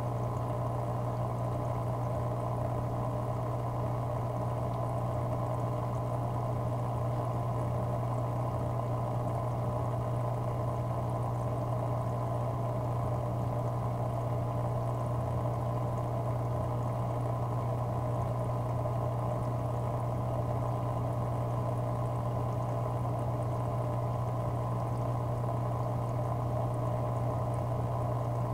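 Aquarium equipment running steadily: a low, even motor hum with a continuous wash of bubbling, trickling water.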